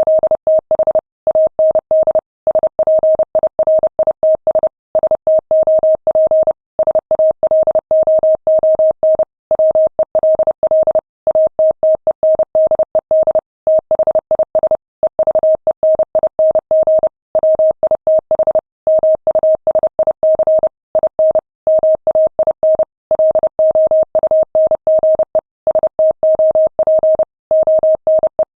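Morse code sent at 30 words per minute: a single steady mid-pitched tone keyed on and off in fast dots and dashes, with short pauses between characters and words, carrying ship's radio message traffic.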